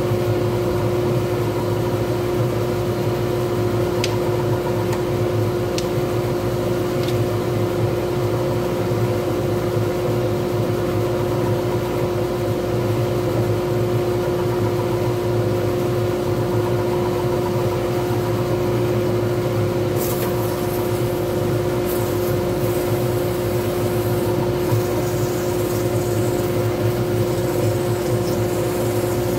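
Wood lathe running at a steady speed with a pen blank spinning on it: a constant motor hum with a clear whine. A few faint ticks and scratchy sounds come over it now and then.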